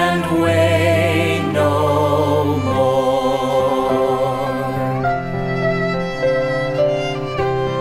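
A hymn sung by a small vocal ensemble with piano, cello and violin accompaniment; after about three seconds the voices give way to steadier held notes from the bowed strings.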